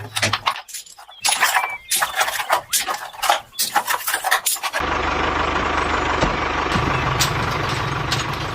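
Rapid, irregular clicks and knocks, then, about five seconds in, a small motor starts running steadily with a low rumble and a faint steady whine.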